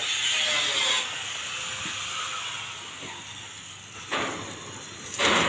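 Water jet from a hose spattering onto a wet Rottweiler's coat and brick paving: a steady hissing splash that eases after about a second, with louder choppy splashing about four seconds in and again near the end.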